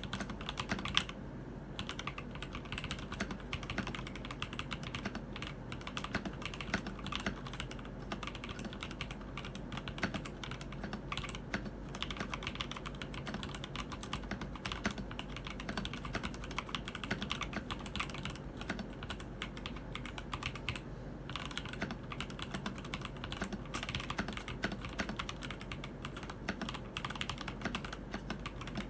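Continuous typing on a Keydous NJ80 mechanical keyboard fitted with TTC Speed Silver linear switches: a dense run of key clacks, with brief pauses about a second and a half in and again near twenty-one seconds.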